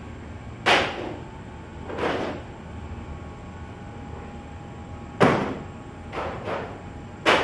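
Steady low hum of an 84-tray bakery rack oven running with its blower and trolley switched on, with a faint thin whine. Several irregular sharp knocks break over it, the loudest about five seconds in.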